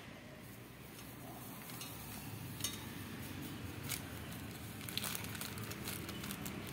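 Metal spoon scraping through dry sugar and jelly powder in a stainless steel pot, with a few sharp clinks of spoon on pot.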